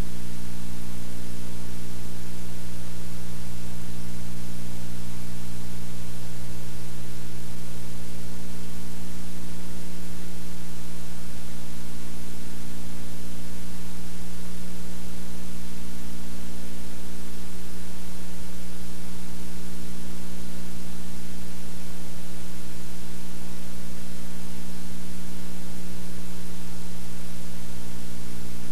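Steady electrical mains hum with a stack of buzzing overtones, under a loud, even hiss of static; it does not change at all.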